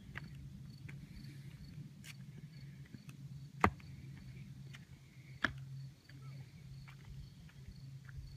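Outdoor ambience with insects chirping faintly in a fast, even pulse over a low steady hum, broken by two sharp clicks about two seconds apart.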